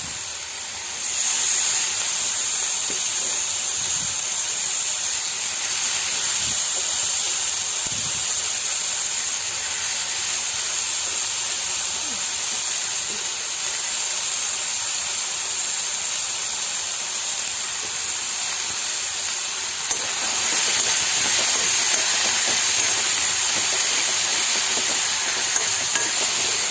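Garlic frying in sesame oil with shallots and tomato in a pan: a steady sizzle that gets louder about a second in and again about twenty seconds in.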